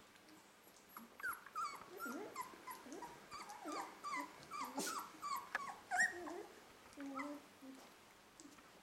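German shorthaired pointer puppies whimpering and yipping: a string of short, high cries, most falling in pitch, starting about a second in and dying away near the end.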